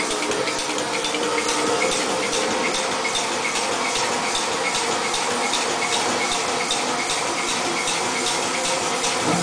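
Massey 3cwt pneumatic power forging hammer running: a steady rushing of air from its built-in compressor with an even mechanical beat of about four strokes a second.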